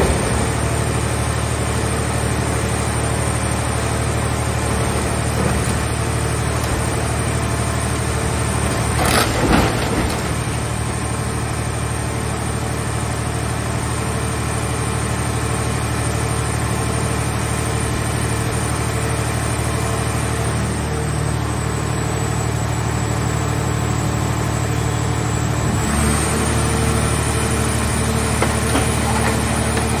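Hydraulic scrap-car baler running under load with a steady low hum as it crushes a car body. A loud crunch of metal comes about nine seconds in, and the machine's tone shifts near the end.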